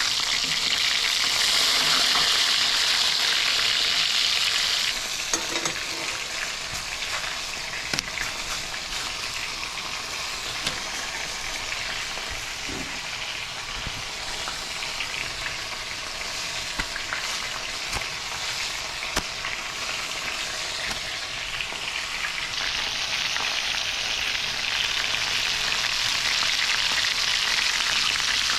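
Breaded bluegill and catfish pieces sizzling in hot frying oil. The sizzle is louder in the first few seconds and again near the end, with a few light clicks from a utensil.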